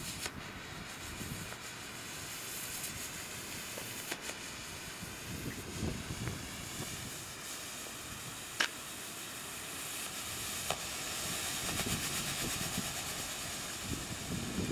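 Purple smoke canister burning, a steady hiss of smoke venting that grows a little louder in the second half. A single sharp click about eight and a half seconds in.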